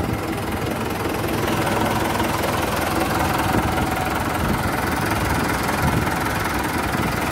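John Deere 5510 tractor's diesel engine idling steadily.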